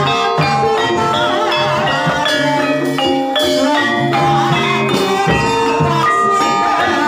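Javanese gamelan music for an ebeg trance dance: mallet-struck tuned percussion plays a steady run of ringing notes over a low repeating pulse.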